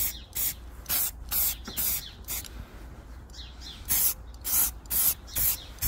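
Aerosol can of grey spray primer hissing in about a dozen short bursts, two or three a second, with a pause of about a second midway: light, quick passes to undercoat miniatures without overdoing it.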